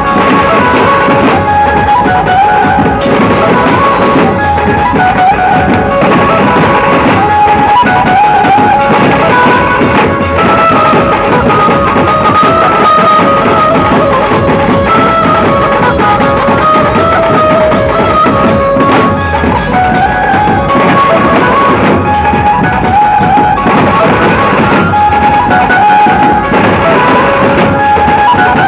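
Dhumal band music: a loud, unbroken melody played in stepping notes over steady drumming.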